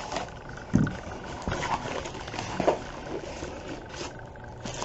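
Scattered thumps and rustles of a gift box and its packaging being handled and opened.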